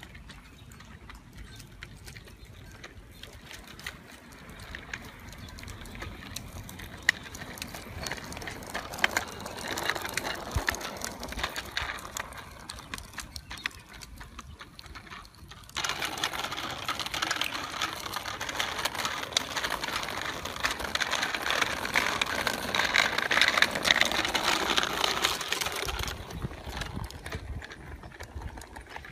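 Child's bicycle with training wheels rolling along a concrete sidewalk: a dense, continuous rattling and clicking that grows louder, is loudest through the second half and falls off near the end.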